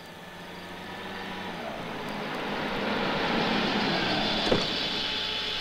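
Car driving up and pulling in, its engine and tyre noise growing louder over the first three seconds and then holding steady. A single sharp knock comes about four and a half seconds in.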